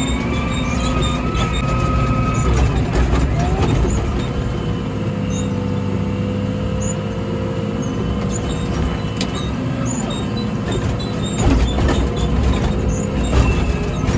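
Komatsu WA100 wheel loader's 4.9-litre diesel engine working under load as the front snow blade pushes heavy snow, heard from the cab. The engine pitch rises early on, then holds steady, and a few knocks and clunks come near the end.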